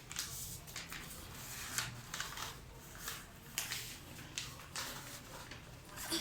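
Scattered light clicks and rustles of hands handling and fitting together small pieces, several ticks a second at irregular intervals.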